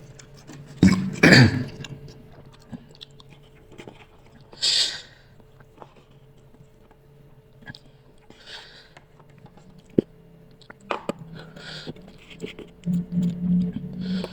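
A person eating spicy instant noodles close to the microphone: chewing, with a loud burst about a second in, a few short breathy hisses and a sharp click.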